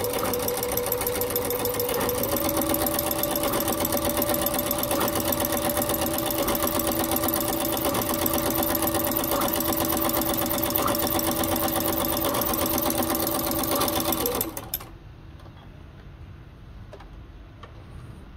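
Singer portable electric sewing machine stitching with a ruffler foot attached: motor hum with a fast, even clatter of the needle and ruffler blade as the fabric is gathered. It speeds up slightly about two seconds in, then runs steadily and stops abruptly about three quarters of the way through.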